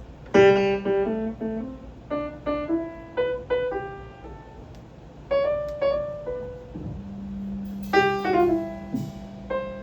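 Solo piano playing a slow jazz ballad: unhurried melody notes and chords, each struck and left to ring, with a low note held underneath from about seven seconds in.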